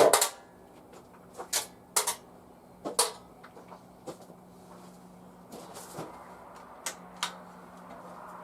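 Sharp metallic clanks and knocks, one loud one at the start and then half a dozen lighter ones spread out, as metal junk is knocked and shifted while someone picks through a cluttered shop.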